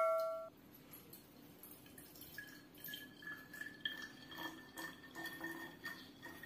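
Hydrogen peroxide poured in a thin stream into an empty glass bottle: faint trickling and drips, with a hollow ringing tone that slowly rises in pitch as the bottle fills. A bell-like chime dies away in the first half second.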